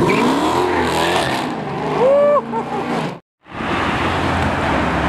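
Mercedes-AMG C-Class coupe engine revving hard as the car pulls away, its pitch rising, with a short tyre squeal about two seconds in. The sound cuts off abruptly a little after three seconds. After a brief gap, an Audi R8 drives past with a steady engine and road noise.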